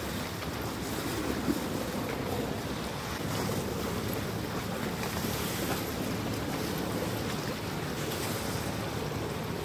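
Canal taxi boat running past on the water: a steady engine drone mixed with the wash of churned water.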